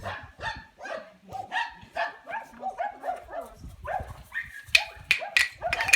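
Xoloitzcuintli puppies barking in quick, high-pitched yaps, about three a second. The barks get louder near the end.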